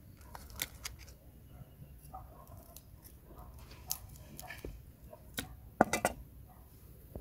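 A knife cutting the heads off raw white shrimp in an aluminium bowl: scattered sharp clicks and taps of the blade and shells against the metal bowl as shrimp are picked up and handled. The loudest cluster of taps comes about six seconds in.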